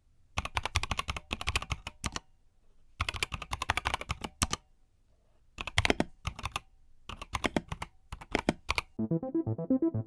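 Typing on a mechanical keyboard with Gazzew Boba U4T tactile switches and XDA keycaps in a 3D-printed case: fast runs of key presses in four bursts with short pauses between. Music with keyboard-like notes comes in about nine seconds in.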